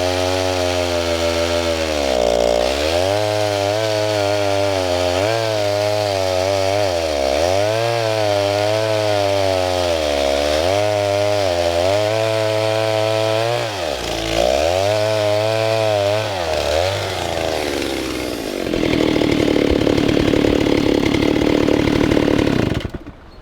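Stihl 08 S two-stroke chainsaw engine revving up and down again and again, about every two to three seconds. After that it runs louder and rougher at a steady pitch for a few seconds, then stops suddenly near the end.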